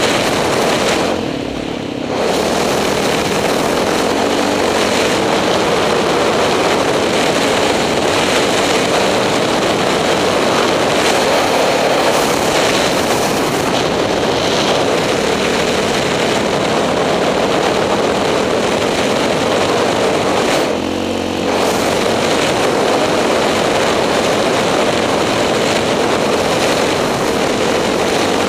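KTM 620 LC4 single-cylinder four-stroke engine running at speed, largely buried under wind rushing over the microphone. Twice, about a second in and again about two-thirds of the way through, the sound drops briefly and the engine's note comes through more plainly.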